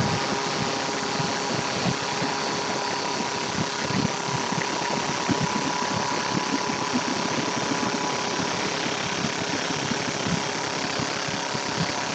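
CNC back-knife wood lathe (JET lathe) spinning a wooden spindle blank at about 2,000 rpm while the back-knife cuts along it: a steady whine from the lathe drive under a continuous hiss of wood being shaved off.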